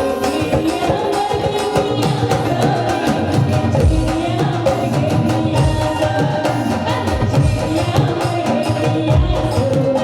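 Indian folk music: a melody carried over hand-drum accompaniment, with deep drum strokes every second or two.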